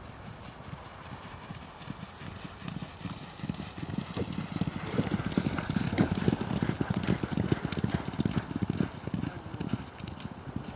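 Hoofbeats of a few racehorses galloping, a rapid drumming that builds as they approach, is loudest as they pass close by in the middle, and fades as they move away.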